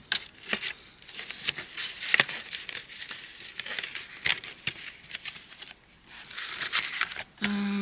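Clear plastic cash-envelope sleeves and paper bills rustling and crinkling as the pages of a ring binder are flipped through, with light taps and clicks. Near the end comes a short steady buzz, about half a second long.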